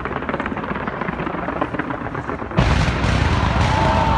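Fireworks show: dense, rapid crackling of sparks cascading from a skyscraper. About two and a half seconds in, it breaks into a sudden loud, deep rumble of booms that carries on, and a thin whistling tone sounds near the end.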